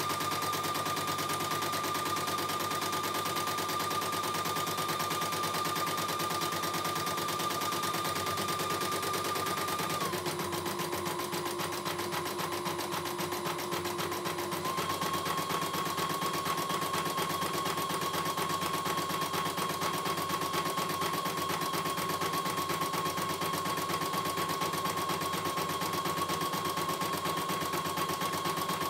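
CNY E900 computerized embroidery machine stitching out a test design: the needle runs at a rapid, even rate over a steady motor whine. The whine drops in pitch about ten seconds in and rises slightly again about five seconds later as the stitching speed shifts.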